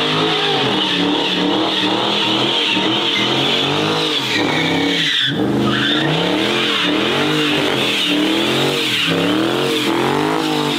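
A car engine revved hard in repeated rises and falls, about once a second, over a steady hiss of tyre noise, as a car does a burnout or drifts on a wet lot.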